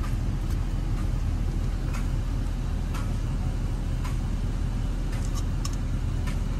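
Steady low rumble of a vehicle idling, heard from inside the cab, with scattered faint light clicks.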